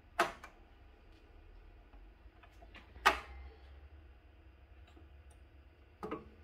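Sharp mechanical clicks from the vintage Sanyo TP-1005 turntable being handled: a loud one just after the start, another about three seconds in, and a fainter one near the end, over a faint low hum.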